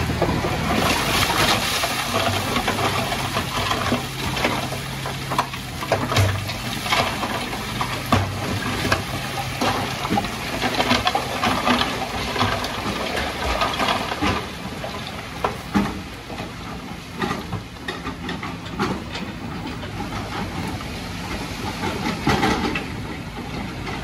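Dump truck tipping a load of broken rock: stones clattering and tumbling out of the raising bed onto a rock pile, with many sharp knocks over a rushing hiss. The truck's engine hums underneath, fading about halfway through.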